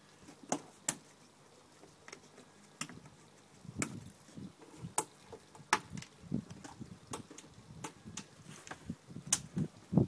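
Irregular sharp clicks and knocks with low rustling as a black fabric half hood is handled and fastened onto a car's body.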